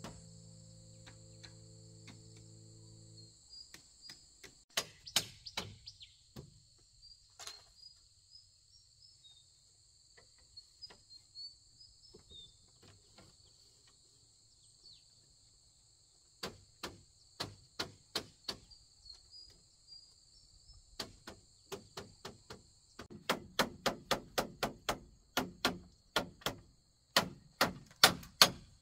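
Hand tool striking bamboo: sharp knocks, sparse at first, then faster and louder in the second half, about three a second near the end, over a steady high chirring of insects.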